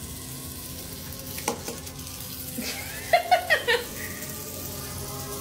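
A woman's voice giving a quick run of short, high excited exclamations or laughs about three seconds in, over a steady faint hiss, with one sharp click shortly before.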